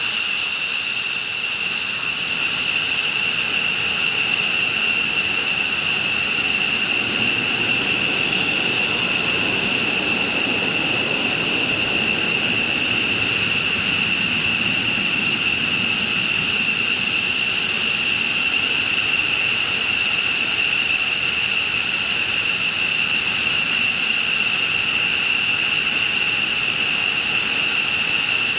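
Jet engine running steadily: a high whine of several steady tones over a rushing rumble that swells about halfway through and then settles.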